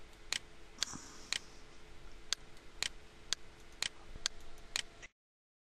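Computer mouse button clicking about nine times at roughly half-second intervals, each a short sharp click, as points of an outline are placed one by one. The sound cuts off to complete silence about five seconds in.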